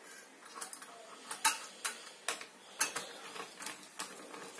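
Light metallic clicks and ticks, irregularly spaced about every half second, as the Noctua NH-U12A cooler's mounting screws are turned down evenly onto the CPU mount.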